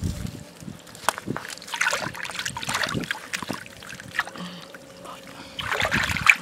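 Hands sloshing and splashing in shallow muddy water, groping in the mud at the base of a grassy bank, in irregular bursts with a louder cluster of splashes about six seconds in.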